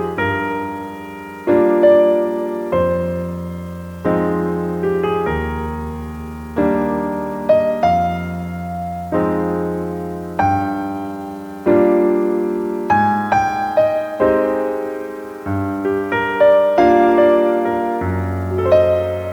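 Slow, gentle piano music: soft chords and single notes struck about once a second, each ringing and fading.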